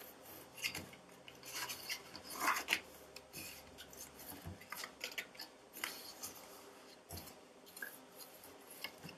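Bone folder rubbing along the score lines of a sheet of cardstock to crease the folds: a run of irregular, short, dry scraping strokes, with the paper sliding on the craft mat.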